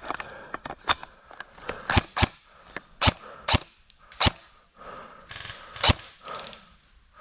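Airsoft guns firing single shots at irregular intervals, about seven sharp cracks over several seconds with a few fainter ones between.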